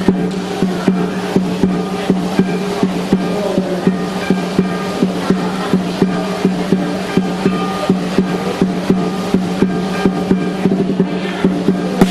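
Lion dance percussion: a large drum with cymbals beating a steady rhythm of about two to three strikes a second over a sustained low ringing tone.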